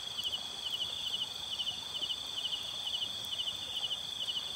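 Night insects: a cricket chirping in short pulsed trills about twice a second over a steady high-pitched insect drone.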